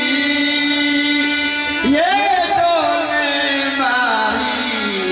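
A man singing a Hindi devotional bhajan with musical accompaniment, drawing out long held notes; a new phrase with sliding, wavering pitch begins about two seconds in.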